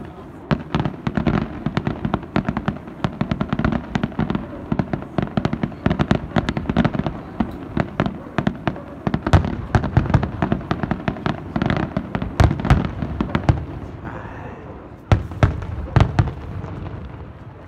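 Aerial fireworks display: a rapid, dense run of shell bursts and crackling bangs, thinning out about fourteen seconds in, then a few single loud bangs.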